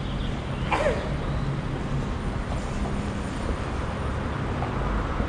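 City street traffic noise: a steady wash of passing vehicles with a low engine hum, and one short falling squeak under a second in.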